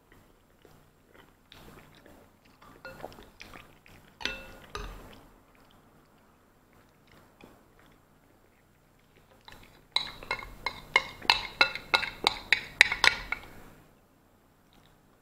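Metal spoon clinking and scraping against a ceramic bowl, with chewing in the first part. Near the end comes a rapid run of sharp, ringing clinks, about four a second, as the spoon scoops around the tilted bowl.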